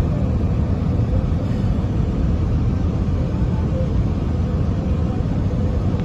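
Steady road noise of a moving car, heard from inside the cabin: a continuous low rumble with a hiss above it.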